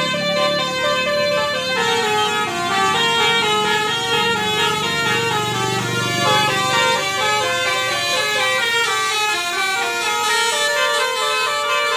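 Basuri 'telolet' musical bus horn playing a fast tune, its notes stepping up and down in pitch several times a second without a pause.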